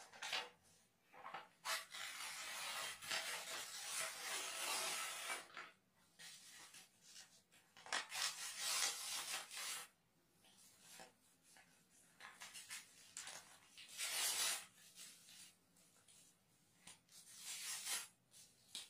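A sheet of paper being torn apart by hand: a long rip of a few seconds, then shorter tears spaced a few seconds apart, with rustling in between as the pieces are handled.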